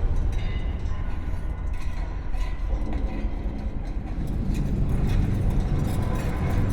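Steady low rumble, a mechanical drone with no distinct events.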